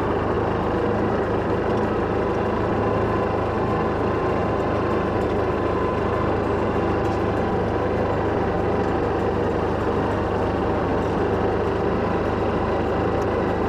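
An engine running steadily at an even speed, starting abruptly just before and holding without change.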